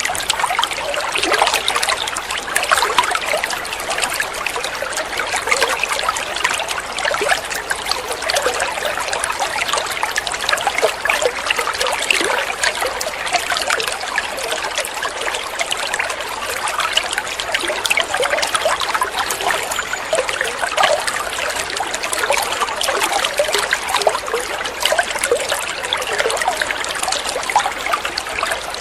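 Running water trickling steadily, full of small splashes and bubbling.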